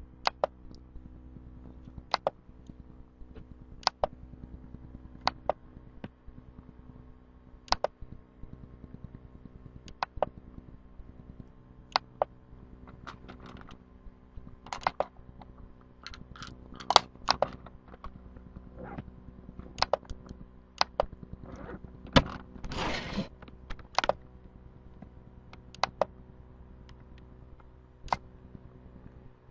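Scattered sharp clicks and light knocks over a faint steady hum, a few seconds apart at first and more frequent in the second half, with a brief rustling noise about 23 seconds in.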